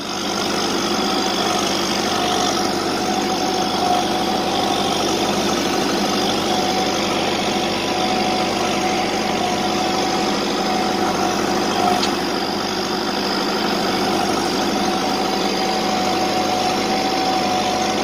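Farm tractor's diesel engine running steadily, driving a vertical feed mixer through its power take-off shaft.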